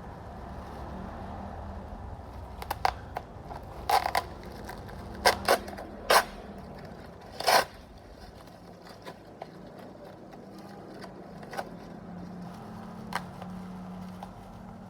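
Handling noises from unboxing a charging cable's packaging: scattered sharp clicks and short scrapes, bunched in the first half, over a steady low hum.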